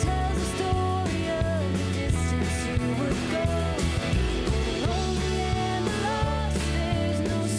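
Live worship band playing a song: a singing voice and guitar over steady bass and drums with cymbals.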